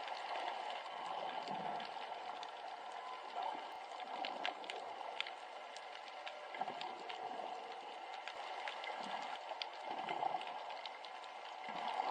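Seawater sloshing and lapping against a small boat's hull, with many small splashes and crackling drips.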